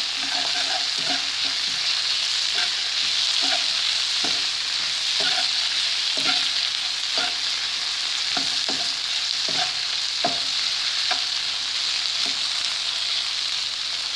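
Sliced onions, green chillies and garlic sizzling in hot oil in a wok, in a steady hiss. A spatula stirs them, scraping and knocking the pan about once a second.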